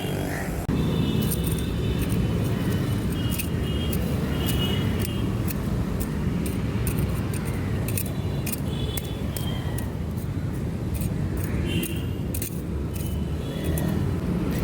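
Metal pieces clinking and knocking against each other, several with a short ring, over a steady low rumble.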